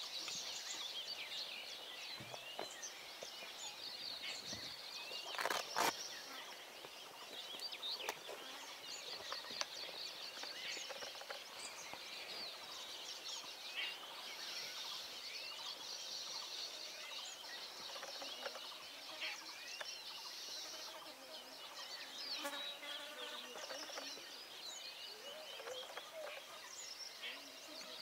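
Many wild birds chirping and calling at once, with insects buzzing in steady stretches over them. Two or three sharp knocks stand out about five to six seconds in.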